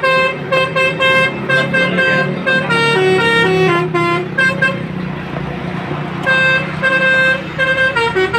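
Truck's Basuri telolet horn, a multi-tone musical horn, playing quick runs of short toots that step up and down in a melody. A break of about a second and a half just past the middle leaves only a rushing noise before the tune starts again.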